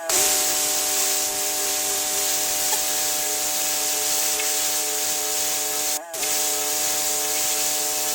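Pressure washer spray jet hissing steadily against a hard surface, with the machine's steady hum underneath. It cuts out briefly about six seconds in.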